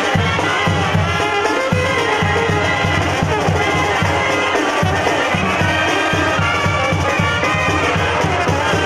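Mexican banda brass band playing live: trumpets and trombones over a sousaphone bass line that pulses in a steady beat.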